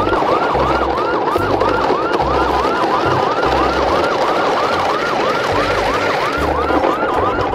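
Electronic emergency siren in fast yelp mode, its pitch sweeping up and down about three times a second without a break, over a pulsing low bass.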